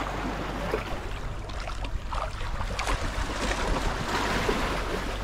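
Sea water splashing and sloshing around swimmers, with a few short splashes, over a steady low hum.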